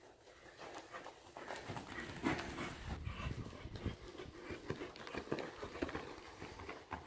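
Faint, muffled hoofbeats of a paint horse moving under a rider on soft sand arena footing.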